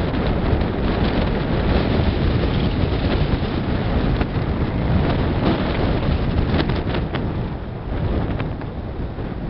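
Strong wind buffeting the camera microphone: a loud, dense rumble heaviest in the low end, swelling and easing in gusts and dropping a little near the end.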